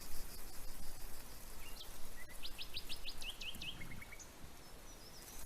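A bird chirping: a quick run of about six high notes about two and a half seconds in, then a few lower chirps, over faint background hiss.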